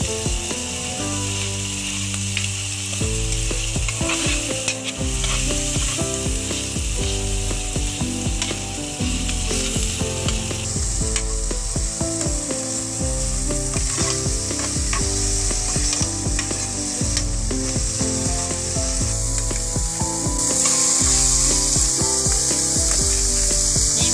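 Sliced tomatoes sizzling as they sauté in hot oil in a steel pot, with a metal spatula scraping against the pot as they are stirred. The sizzle gets louder near the end as raw chicken necks go into the pot. Background music plays throughout.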